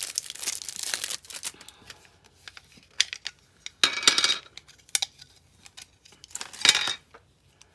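Clear plastic bag crinkling and rustling as it is handled and opened, with small plastic clicks and taps between. The crinkling comes in bursts, loudest about four seconds in and again near the end.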